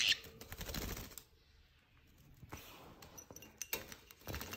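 A conure bathing in a shallow water dish, fluttering its wings and splashing in bursts: about a second at the start, briefly in the middle, and again near the end.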